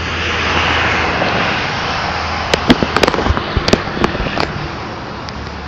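A rush of noise swells over the first couple of seconds. Then, about halfway in, comes a quick, irregular run of sharp, loud knocks or cracks lasting around two seconds.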